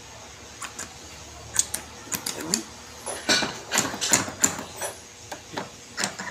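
Metal parts of a forklift starter motor clicking and knocking as the solenoid is handled and fitted onto the starter housing. Scattered clicks at first, a cluster of knocks past the middle, and a quick run of ticks near the end.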